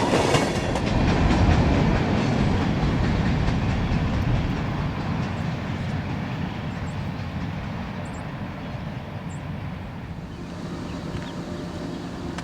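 Freight train rolling by with its wheels clattering on the rails. It fades steadily as it moves away.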